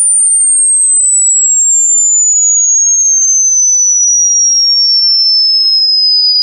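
Mosquito repellent tone: a single loud, very high electronic pure tone that slides slowly and smoothly down in pitch.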